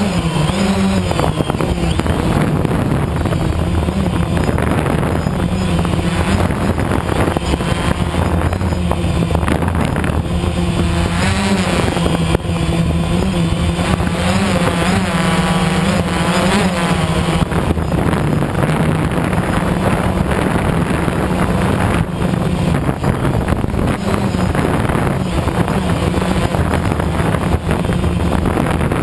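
An engine running steadily for the whole stretch, its low pitch wavering slightly.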